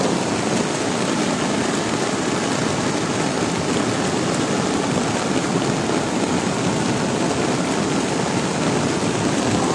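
Muddy floodwater rushing in a steady, unbroken torrent, mixed with heavy rain.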